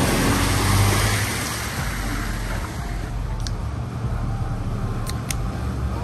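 Jeep Wrangler's engine running as it wades through a fast river, water churning and splashing around its tyres. After about a second and a half it drops back to a steady rush of river water with a low engine hum beneath, and a few short ticks near the end.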